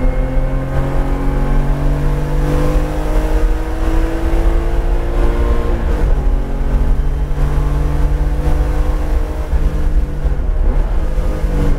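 Porsche 911 GT3 RS's naturally aspirated flat-six at full throttle, heard from inside the cabin. Its pitch climbs steadily through a gear, drops sharply at an upshift about six seconds in, then climbs again, with a brief dip near the end.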